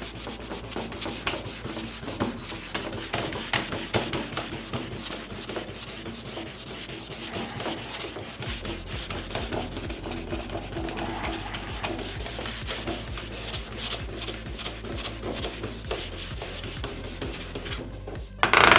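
A cork is rubbed briskly back and forth along the kick zone of a Fischer classic cross-country ski, working warmed base grip wax into the base. It makes a steady scrubbing of many quick strokes. A short, louder noise comes right at the end.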